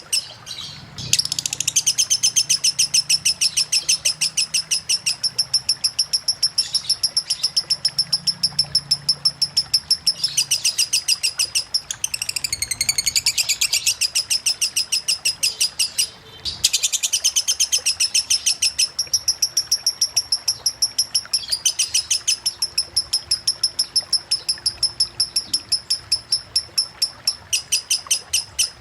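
Lovebird singing a long 'ngekek' run: rapid, evenly repeated shrill chirps, about five or six a second, going on almost without a break. It stops briefly about a second in and again past the middle, and in one stretch the chirps swoop down and back up in pitch.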